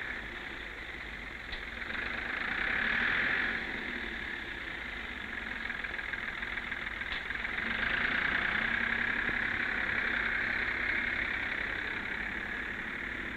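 Ford Major 4000 tractor engine running as it works a front-end loader, swelling louder twice: about two to three seconds in, and again for a few seconds past the middle.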